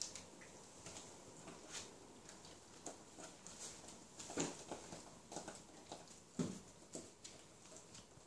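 Puppies scrabbling and playing on a newspaper-covered floor: scattered soft taps, scuffs and paper rustles from paws and toys, with louder knocks about four and a half and six and a half seconds in.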